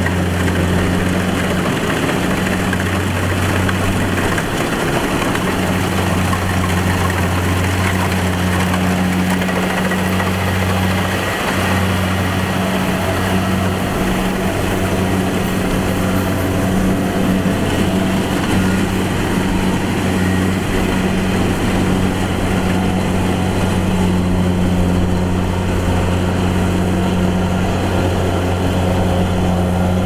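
Kubota rice combine harvester running steadily while cutting and threshing standing rice: a continuous low engine hum under a broad, even mechanical noise.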